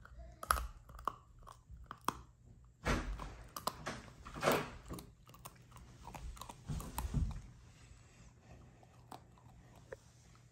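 A puppy chewing and crunching a crumbly treat: irregular crunches that are heaviest in the middle and thin out near the end.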